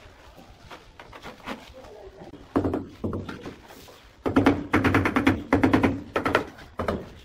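A hand tool rapidly tapping a large ceramic wall tile to bed it into the adhesive. A few knocks come near the middle, then a fast run of taps lasts about two and a half seconds.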